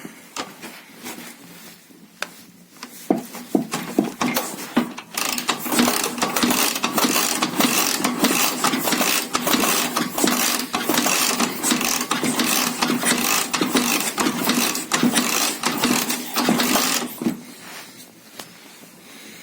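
Dnepr flat-twin motorcycle engine being turned over without starting during a compression test of the left cylinder: a few clicks, then a fast, continuous mechanical clatter from about three seconds in that stops sharply near the end. The test shows weak compression, an engine the owner calls half-dead.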